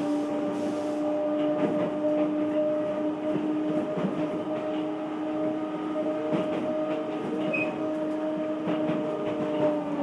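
Odakyu 1000-series electric train running, heard from inside the car: a steady humming tone from the drive over the rumble of the wheels, with scattered clicks over the rails.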